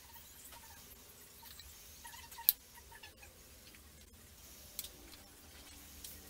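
Quiet room tone with a few small taps and clicks as fondant pieces and a small tool are handled on a wooden tabletop; one sharp click about two and a half seconds in, and two fainter ones near the end.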